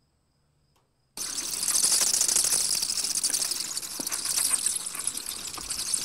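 Dense chorus of night insects: a steady, high-pitched hiss of fast ticking that starts suddenly about a second in and cuts off abruptly at the end.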